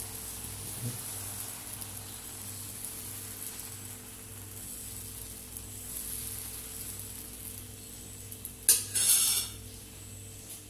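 Dosa batter sizzling softly on a hot nonstick tawa as a steel ladle spreads it thin in circles, with a short louder rattle about nine seconds in.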